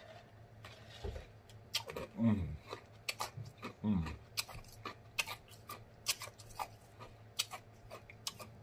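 Close-miked mouth sounds of a man tasting and eating: many wet lip smacks and tongue clicks, with two short falling "mm" hums about two and four seconds in.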